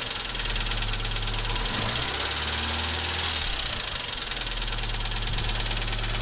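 MeMZ-245 four-cylinder petrol engine running with a rapid, even metallic knock, its note shifting around two seconds in and settling back by about four. The knock is suspected to be a piston pin knocking in the piston bosses of the fourth cylinder, and it grows louder when the throttle is released.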